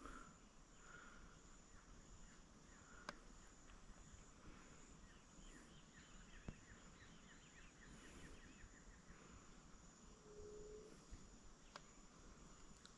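Near silence: faint rural outdoor ambience with a steady high insect buzz, a run of faint chirps in the middle, and a few tiny clicks.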